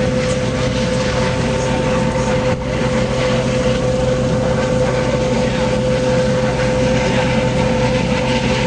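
Coast Guard HH-65 Dolphin helicopter hovering close by: a loud, steady rumble of rotor and turbine with a steady whining tone over it.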